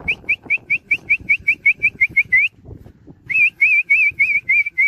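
A person's rapid repeated whistle calling sheepdogs: a fast string of short rising notes, about five a second, for some two and a half seconds. After a short break comes a second run of wavering notes.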